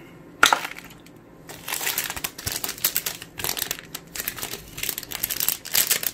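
Clear plastic packaging bags crinkling and rustling as accessories are handled. There is a sharp knock about half a second in, and the crinkling grows dense from about two seconds in.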